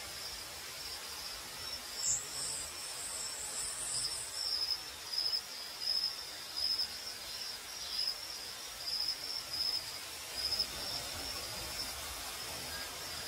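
Crickets chirping in a steady run of short, high pulses. A second, higher insect buzz joins briefly about two seconds in.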